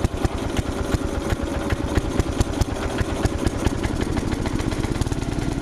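1977 Wheel Horse A90 lawn tractor's engine running just after it fired up, a fast pulsing beat that is uneven at first and then steadies. It is a cold start after the tractor sat for a couple of months in a cold barn.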